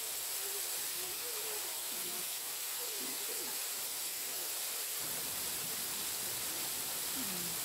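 Steady rushing hiss of falling water from a waterfall, with faint distant voices.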